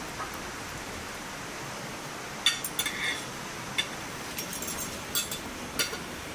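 Metal spoon and fork clinking and scraping on a ceramic plate while scooping rice and fish, a series of short clinks starting about two and a half seconds in, over a steady hiss of rain.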